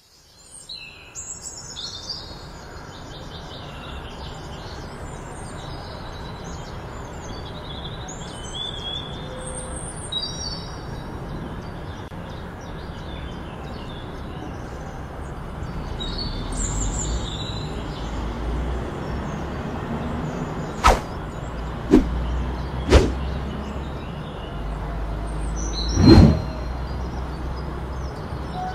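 Birds chirping over a steady low rumble of background noise. In the last third come three sharp knocks about a second apart, then a few seconds later a louder, longer thump.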